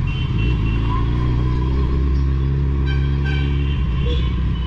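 Suzuki Hayabusa's inline-four engine, fitted with a Two Brothers Racing aftermarket exhaust, running at a steady low speed with an even note. The note changes about four seconds in. High horn tones sound from the surrounding traffic near the start and again in the last second or two.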